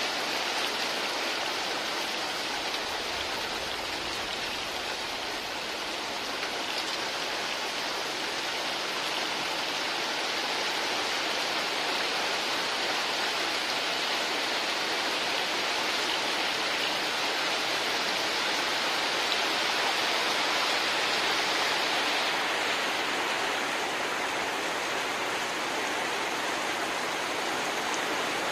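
Heavy rain falling steadily on river water, a dense, even hiss of countless drops.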